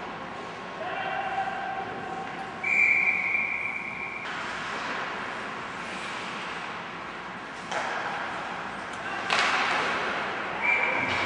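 Hockey referee's whistle: one steady, high blast of about a second and a half, and a second blast starting near the end. In between come sudden scraping rushes of noise, typical of skates stopping on the ice.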